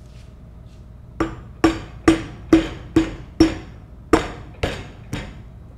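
A mallet tapping a steel cage and piston assembly down to seat it in a control valve body. The blows start about a second in at about two a second, six in a row, then a short pause and three more.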